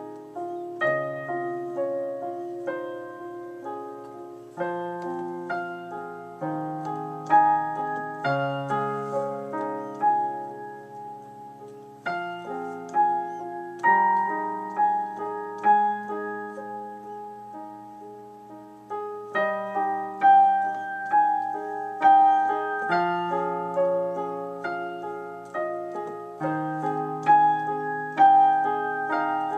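Slow solo improvisation on a digital piano: held bass notes under chords and broken-chord figures, the playing growing fuller about two-thirds of the way in.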